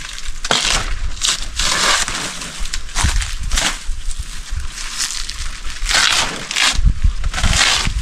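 Banana leaves being torn off a banana plant and handled: repeated tearing and rustling in short irregular bursts, with a few low thumps near the end.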